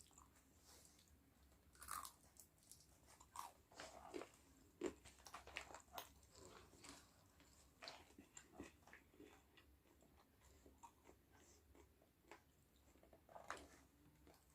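A person biting and chewing ayam geprek, crispy smashed fried chicken, in faint, irregular crunches and mouth clicks.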